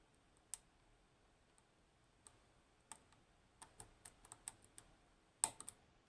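Faint, scattered metallic clicks of a lock pick working the pins of an Assa 600 lock cylinder: a few single clicks, a quick run of small clicks in the middle, and one louder click near the end.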